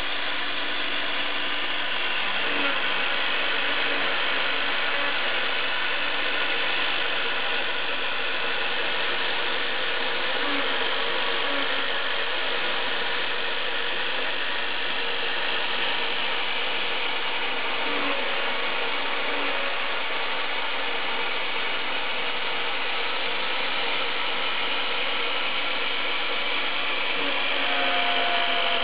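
Homemade CNC router milling: the router motor runs steadily at high speed with the bit cutting the sheet, a dense even noise, with short tones underneath that shift in pitch now and then and a higher tone joining near the end.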